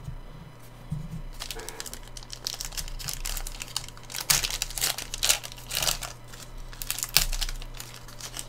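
Wrapper of a Panini Chronicles football card pack being torn open and crinkled by hand, in a dense run of sharp crackles starting about a second and a half in.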